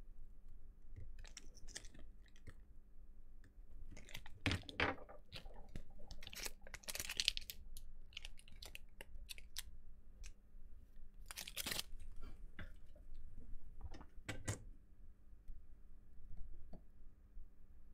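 A small metal tool scraping and tapping along the plastic front frame of an e-reader: irregular clicks and short scratchy scrapes, with a few louder scrapes about four, seven, eleven and fourteen seconds in.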